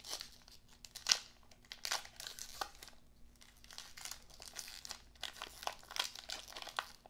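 Trading-card pack wrapper being torn open and crinkled by hand: a run of irregular sharp crackles, the loudest about a second in.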